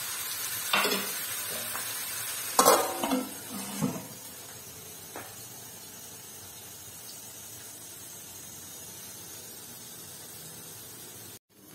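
Chopped carrots sizzling in oil in a steel pot, with metal clatters as a steel plate is set on the pot as a lid during the first four seconds; after that the sizzle goes on steadily and more quietly under the lid.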